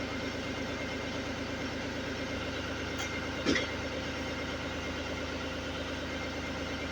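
Vacuum cleaner motor running steadily while it blows air, with a low pulsing hum under the rush, and a brief knock about three and a half seconds in.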